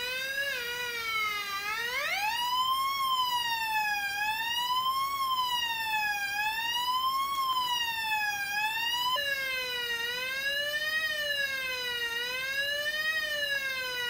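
Police-siren circuit built from two NE555 timers, driving a small loudspeaker: an electronic tone wailing up and down. About two seconds in the pitch slides up as the sound-frequency potentiometer is turned, and about nine seconds in it drops suddenly to a lower pitch with a quicker wail.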